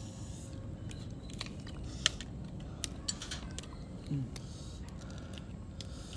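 Scattered sharp clicks of clam shells and utensils being handled while someone eats, with a brief voiced murmur about four seconds in.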